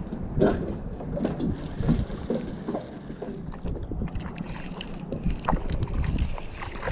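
Wind buffeting the microphone and small waves lapping against a kayak hull, with scattered small knocks and clicks throughout.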